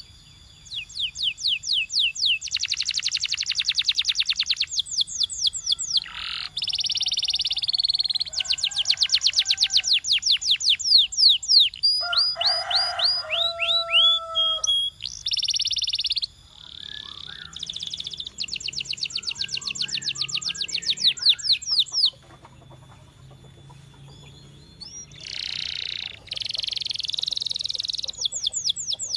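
Canary singing: long trills of rapidly repeated high notes, alternating with dense buzzy rolls and a brief phrase of lower held notes. The song pauses a little over two-thirds of the way through, then resumes with another buzzy roll and a fast trill.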